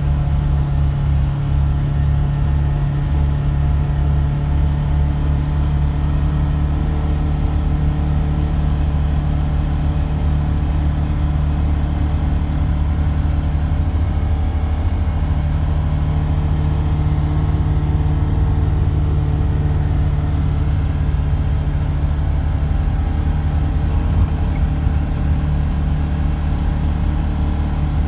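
UTV engine and drivetrain running at an even speed, a steady low drone heard from inside the enclosed cab.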